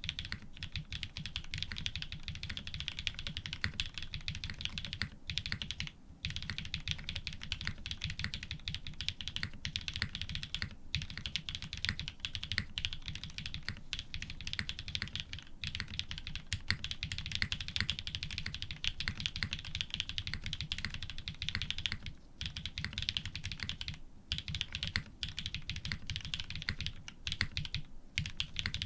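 Fast, continuous typing on an F1-8x mechanical keyboard with linear Cream-stem switches in Cherry housings, lubed with Krytox 205 and 105 and fitted with TX 50 g springs, on an FR4 plate with GMK keycaps. Many keystrokes a second, broken by a few short pauses.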